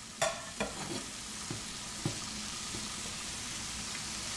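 Yeast doughnuts sizzling steadily in hot oil in a frying pan. In the first second, metal tongs clink a couple of times against the pan as the doughnuts are turned, followed by a few lighter taps.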